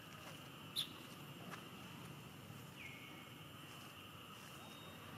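Quiet outdoor forest ambience with a steady high insect drone. There is one short sharp chirp about a second in, and a faint whistled note near the middle that drops and then holds.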